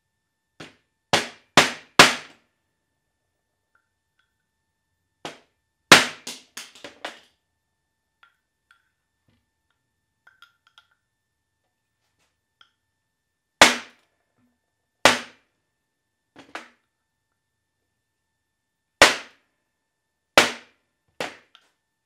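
Hammer striking a Porsche 911 steering rack housing: sharp metal blows in bursts of a few, then single blows about a second and a half apart, with quiet pauses between.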